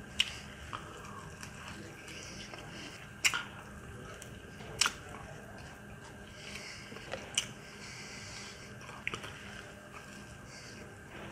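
Close-up eating sounds: a man biting into and chewing food held in his hands, with a few sharp mouth smacks one to two and a half seconds apart.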